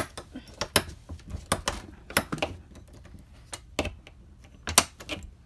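Irregular clicks and rattles of a plastic trailer door latch worked by hand, over and over, without the door opening.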